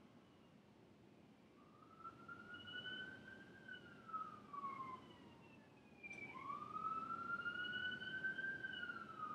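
Faint emergency-vehicle siren in a slow wail, its pitch rising over about two seconds and falling again, twice; the second rise starts abruptly about six seconds in.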